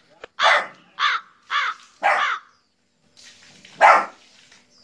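A dog barking at a television screen: four short barks about half a second apart, then one more nearly two seconds later.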